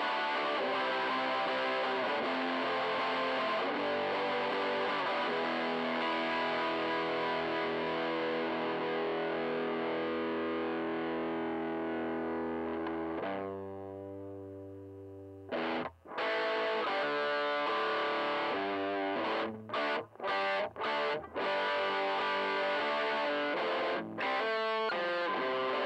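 Michael Kelly Patriot Custom electric guitar played through a Joyo crunch distortion pedal into a Fender tweed Deluxe (5e3) copy amp: distorted chords. About halfway through, one chord is held and rings out. After that the chords are short and choppy, with several brief stops.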